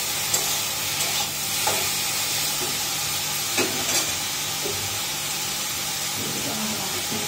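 Sabzi sizzling as it fries in a steel kadai on a gas stove, with a steel spoon now and then scraping and knocking against the pan as it is stirred.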